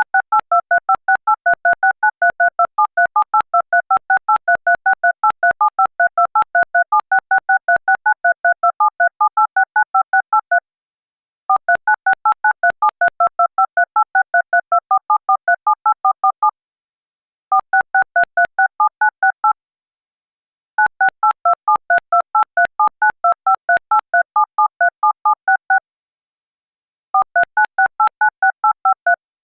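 Synthetic DTMF telephone keypad tones, generated in Audacity, dialing long strings of digits: quick, evenly spaced short beeps, each a pair of tones. They come in runs broken by pauses of about a second, around 11, 16, 20 and 26 seconds in.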